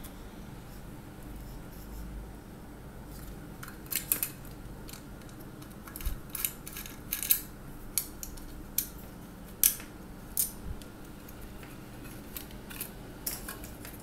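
Irregular sharp metallic clicks and scrapes as a car power inverter's aluminium casing and screws are worked with a screwdriver. The clicks start about four seconds in, some coming in quick pairs.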